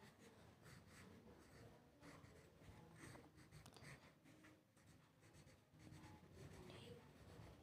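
Faint scratching of a pen on notebook paper as words are written by hand, in short irregular strokes.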